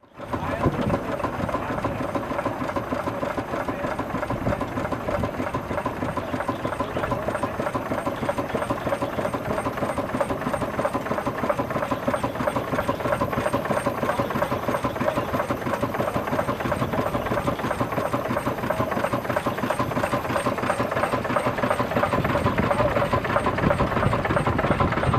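Huber steam traction engine running steadily, belted to an antique sawmill, with a fast, even run of mechanical beats and rattle.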